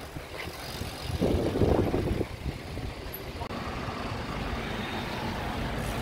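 Road traffic: a car engine running close by, with a low steady rumble, a louder swell about a second in, and a steady hum in the second half.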